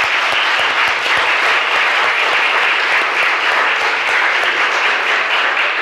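A congregation's round of applause: many people clapping steadily, fading just as it ends.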